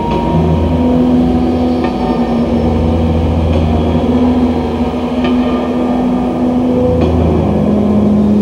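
Low, engine-like electronic drone from an experimental ambient soundtrack: steady held tones that step up and down in pitch, with a faint tick about every second and a half to two seconds.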